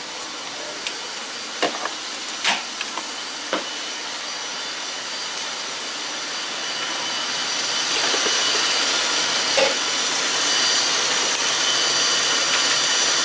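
Jeep Grand Cherokee engine running at idle: a steady hiss with a high whine that grows louder about eight seconds in. A few light clicks and knocks sound in the first few seconds.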